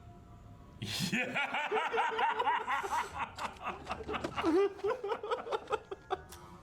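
People laughing, starting about a second in and going on in quick chuckling pulses until shortly before the end.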